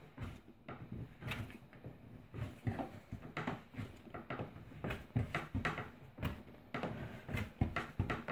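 Bread dough being kneaded by hand on a floured wooden table: irregular thumps and slaps, about one or two a second, as the dough is pushed down, folded and turned.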